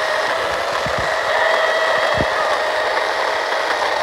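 A 14-inch 40V battery-powered electric chainsaw running at full speed with a steady whine, its chain cutting into a tree stump.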